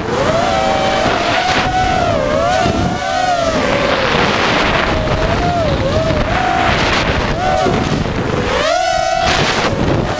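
Brushless Cobra 2204 1960kv motors spinning 5045 bullnose propellers on a ZMR250 racing quadcopter, whining with a pitch that swoops down and up as the throttle changes. Wind rushes over the onboard microphone.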